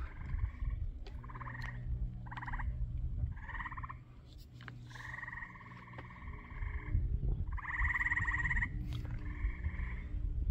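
A run of buzzing, rapidly pulsed trilling animal calls, about eight of them. They are short at first, and the longest runs nearly two seconds about halfway through. Wind rumbles on the microphone underneath.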